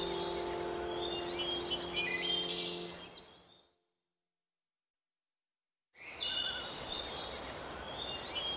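Background nature soundtrack: birds chirping over a steady hiss, with a held low music chord beneath. It fades out about three and a half seconds in, stops dead for about two seconds, then the birdsong and hiss start again.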